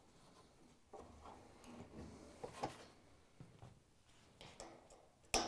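Light clicks and taps of plastic washer suspension-rod bearing parts handled on the sheet-metal cabinet frame, then one sharp snap near the end as a plastic bearing cup is snapped into place in the frame.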